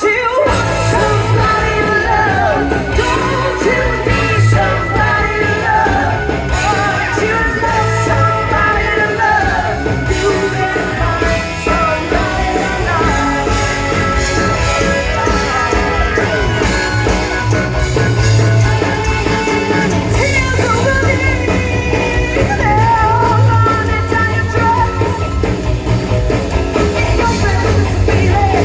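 Live rock band playing with a lead singer: electric guitar, bass and drums under a sung melody that continues throughout.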